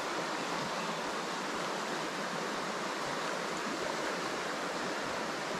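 Muddy creek water, high after rain, running steadily over a rocky riffle: an even, unbroken rushing.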